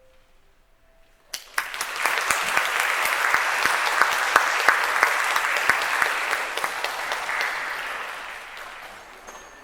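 The last held note of the music bells and tone chimes fades out. About a second in, audience applause breaks out, holds steady and tapers off near the end.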